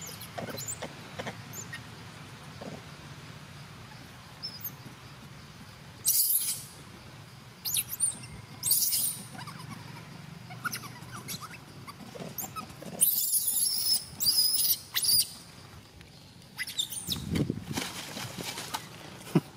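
Young macaques squealing: several short, shrill, high-pitched bursts, with a longer run of wavering squeals past the middle.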